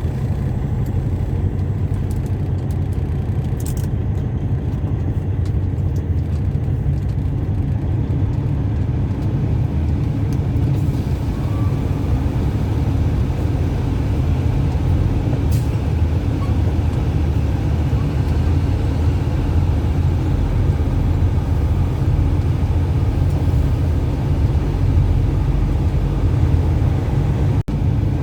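Semi truck's diesel engine running with a steady, deep drone.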